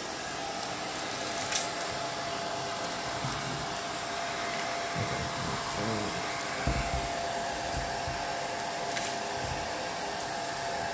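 Hair dryer running steadily, heating the sticky preservative wrapping on a rifle to loosen it. It gives an even rush of air with a constant whine.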